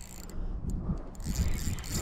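Spinning reel being cranked, its gears whirring and ticking as line is wound in on a hooked small yellowtail. The whirring grows louder about a second in.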